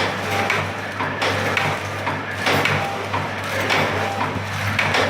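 Four-side-seal granule sachet packing machine running: a steady low motor hum with repeated sharp clicks and knocks from its working cycle.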